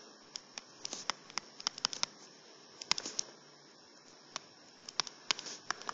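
Stylus tapping on a tablet touchscreen while handwriting: a string of irregular clicks as each stroke starts and ends.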